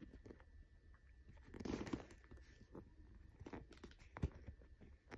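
Faint handling sounds of fingers rubbing and picking at a mark on a faux-leather mini backpack, with a louder rustle about two seconds in and a sharp click a little after four seconds.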